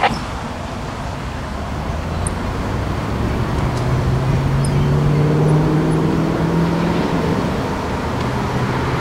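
Diesel locomotive of a passenger train approaching: a low engine rumble that grows slowly louder, with a steady low engine note coming in about four seconds in. A sharp click sounds at the very start.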